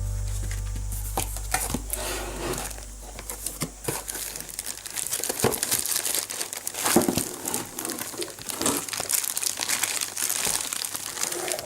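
Packaging being handled and crinkled, with irregular rustles and small clicks. A held low music note fades out over the first few seconds.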